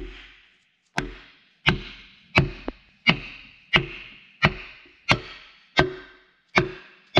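A hammer striking a wooden block laid across a wet cylinder liner in a John Deere 6.8 L PowerTech engine block, about ten evenly spaced blows a little under a second apart, each ringing briefly. The blows are pressing the liner past its O-rings and seating it in the block's counterbore.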